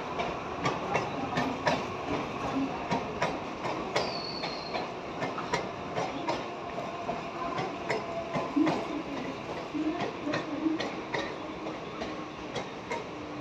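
Mumbai suburban local train running along the tracks, its wheels clicking over the rail joints in an uneven rhythm of a few clicks a second. A brief high squeak comes about four seconds in.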